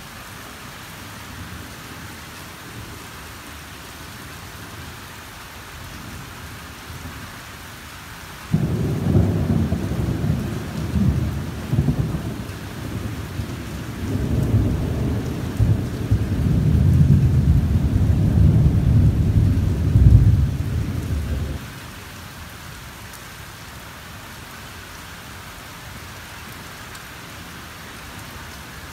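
Thunder rumbling and rolling for about thirteen seconds, starting suddenly about eight seconds in, loudest near the end, then stopping abruptly, over steady rain falling.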